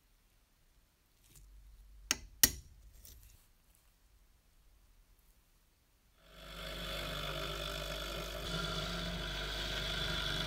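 Two sharp metallic clicks of small steel parts handled, about two seconds in; then, from about six seconds in, an electric drill running steadily, spinning a steel rod while a flat file is held against it.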